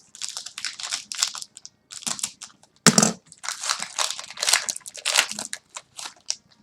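Foil wrapper of a trading card pack crinkling and crackling in irregular bursts as it is torn open and crumpled by hand, loudest about three seconds in.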